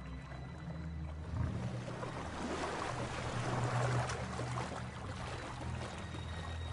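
Water splashing and churning around lions swimming through a river, building up and loudest around three to four seconds in, then easing off.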